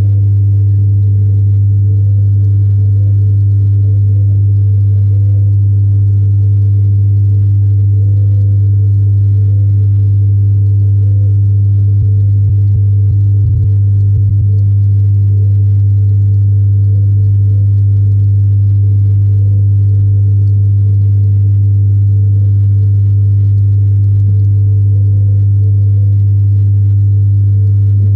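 Loud, steady low electric hum with a few overtones from the fish tank's submersible pump, heard with the microphone underwater. A few faint low knocks come about halfway through.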